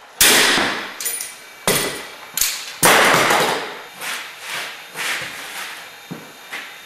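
A run of loud, sharp metallic cracks and clanks, each ringing briefly, from an apparatus clamped to a worktable that has just been strained with a long lever bar. Five hard hits come in the first three seconds, then weaker ones follow and fade out.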